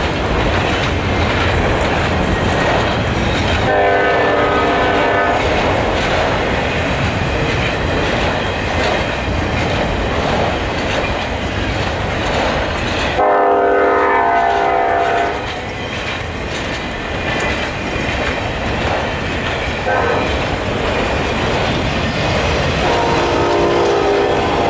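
Freight train rolling past with the steady rumble and clatter of autorack cars. The lead Union Pacific diesel locomotive's air horn sounds the grade-crossing signal over it: long, long, short, long, with the second long blast the loudest.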